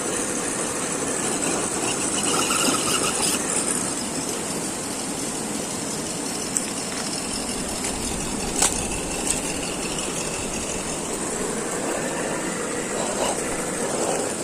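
Electric motor and gearbox of an RGT EX86010-CJ 1:10 scale RC crawler whirring steadily as it drives, with a sharp click about eight and a half seconds in.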